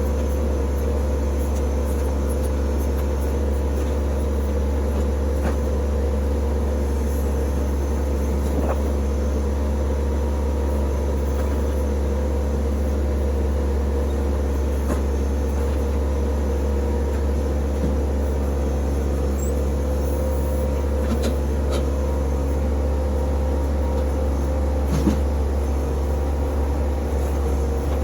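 TYM T264 compact tractor's diesel engine running at a steady speed, a constant low drone with a faint knock about 25 seconds in.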